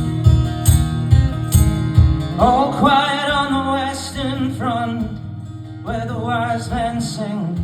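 Live acoustic guitar strummed in a steady rhythm as a folk-song opening, with a wavering melody line coming in over it about two and a half seconds in and again near the end.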